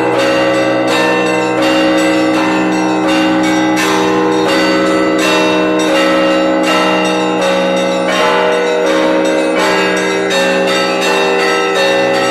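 Russian Orthodox church bells rung by hand for the all-night vigil: several bells of different pitches struck together in a rapid, steady rhythm, their tones ringing on and overlapping over a deep, sustained bell tone.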